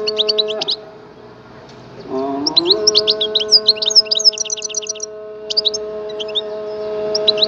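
European goldfinch singing quick twittering chirps and trills. The song breaks off for a second or so, then resumes about two seconds in. It runs over background music of sustained, droning tones.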